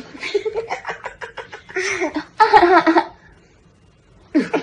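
A toddler's high-pitched babbling and whining, a string of short cries that swell into a louder, wavering wail about two and a half seconds in, then fall quiet.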